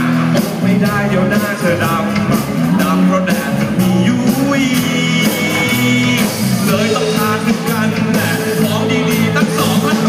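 Live rock band playing loudly, with electric guitars and drums.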